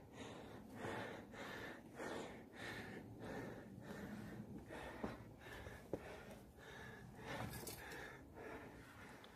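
A hiker's heavy breathing, close to the microphone, from the effort of climbing a steep trail: quick, even breaths about one and a half a second. Two short sharp clicks sound about halfway through.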